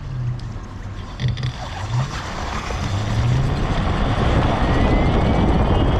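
Ninebot-Segway E200P electric moped riding, with wind and tyre rush that grows louder as it picks up speed. Near the end a thin electric-motor whine rises in pitch.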